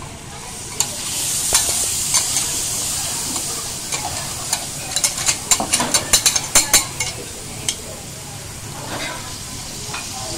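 Scallops sizzling on a hot flat-top griddle: a steady frying hiss, with a quick run of sharp crackles and clicks about five to seven seconds in.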